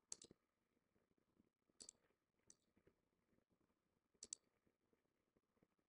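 Faint clicks of a computer's pointer button over near silence: a quick pair near the start, another pair and a single click around two seconds in, and a last pair a little past four seconds.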